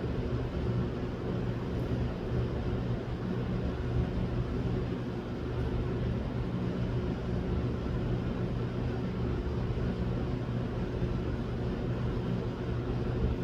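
Steady machine hum with a hiss over it, unchanging throughout.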